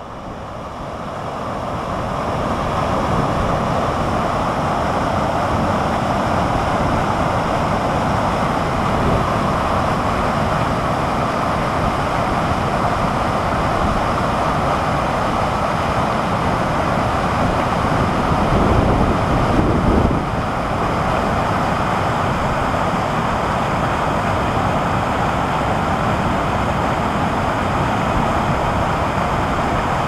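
Water pouring in curtains from mushroom-shaped pool fountains and splashing into the pool, a steady rushing splash that fades in over the first couple of seconds. Wind buffets the microphone in a brief low rumble a little before the twenty-second mark.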